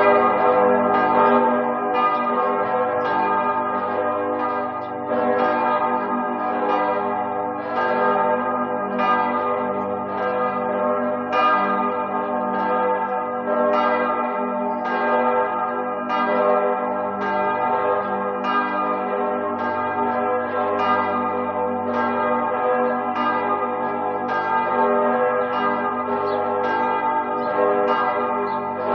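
Church bells ringing continuously, with a new stroke about once a second over the overlapping hum of the bells still sounding.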